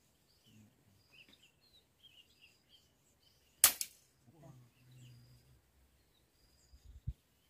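Small birds chirping, with one sharp crack about halfway through, by far the loudest sound, and a short low thump near the end.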